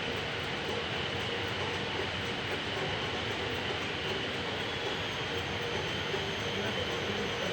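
Park tram running, heard from on board: a steady mechanical and rolling noise with a constant high whine.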